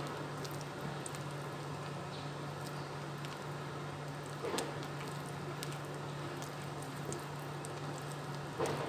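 Ceramic spoon stirring thick puto batter in a ceramic bowl: soft squishing with light ticks of spoon on bowl, and two slightly louder knocks, one about halfway and one near the end. A steady low hum runs underneath.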